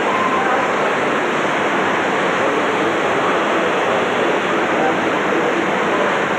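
Steady, even rushing noise with a faint murmur of voices beneath it.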